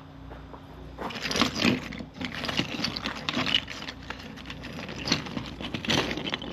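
Irregular light rustling and clicking of objects being handled, starting about a second in and coming in several bouts, over a faint steady hum.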